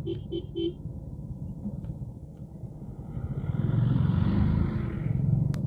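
A 100cc single-cylinder motorcycle engine running under way, growing louder and fuller for a couple of seconds past the middle; three short beeps come in the first second. The rider says a weakened timing chain, at 21,000 km, has slightly changed the engine's sound.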